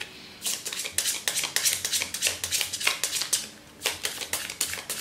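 A deck of playing cards being shuffled by hand: a quick, irregular run of crisp card slaps and riffles, with a short break about three and a half seconds in.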